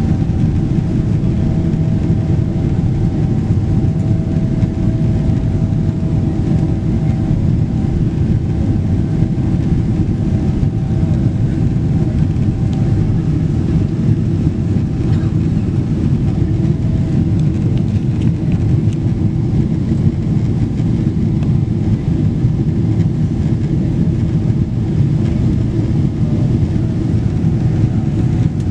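Boeing 777-200LR's GE90 turbofan engines running at high power during the climb just after takeoff, heard inside the cabin as a loud, steady low roar. A faint high whine over it fades away partway through.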